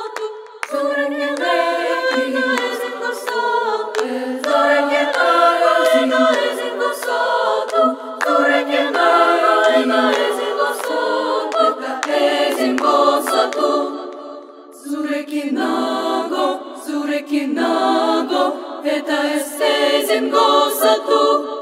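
A girls' choir singing a Basque song a cappella in several parts, with high voices only. The singing eases briefly about two-thirds of the way through, then picks up again.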